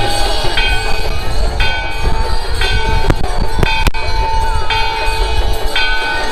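Temple bells ringing during the aarti in a steady rhythm, about one strike a second, over a constant ringing tone. A steady low rumble and a few sharp clicks sound beneath them.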